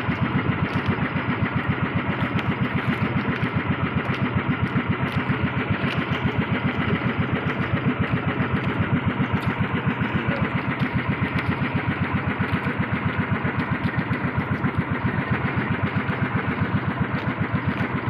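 Boat engine running steadily with a fast, even chugging beat.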